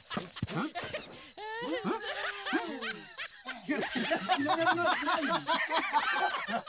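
Several people laughing hard. Squealing rises and falls at first, then the laughter turns louder and faster about four seconds in.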